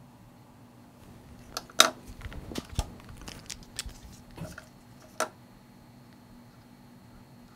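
Small clicks and taps as a stripped card-reader circuit board is handled and set down on a microscope base and pressed into place, with sharper knocks about two seconds in and again near five seconds, over a faint steady hum.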